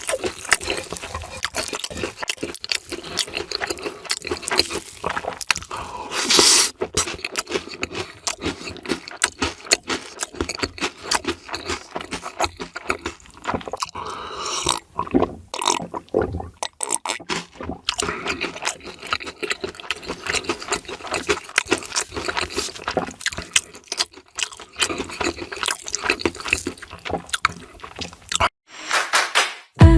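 Close-miked mukbang eating: rapid crunching and chewing of crisp fried food, many short sharp bites one after another, with a louder crunch about six seconds in.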